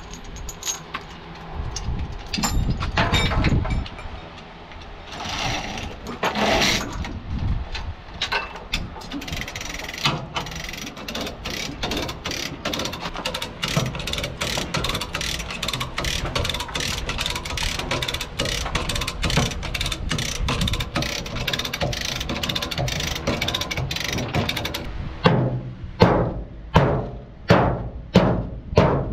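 Rapid, even ratcheting clicks while a chain pulling rig straightens the crumpled corner of a steel truck cab. Near the end come heavy, regular knocks, about one every second or so, as the dented cab panel is worked with a hand tool.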